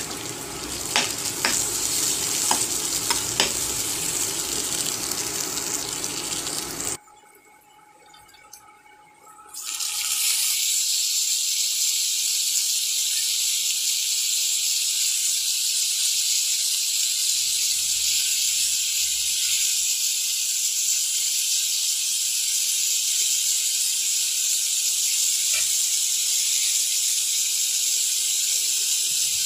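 Onions sizzling in oil in a frying pan, with clicks and scrapes of a spatula stirring them. After a short near-silent gap about seven seconds in, a steady high hiss of frying sets in as sliced tomatoes cook in the pan.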